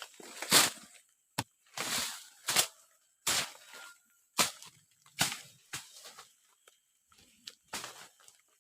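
Wood being chopped by hand with a blade: about a dozen sharp strikes at an uneven pace, roughly one a second.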